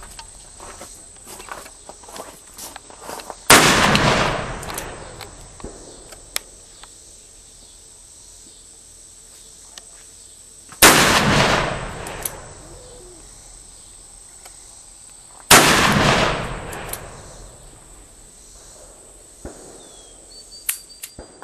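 Three single gunshots, the second about seven seconds after the first and the third about five seconds later, each followed by a long echo that takes a second or two to die away.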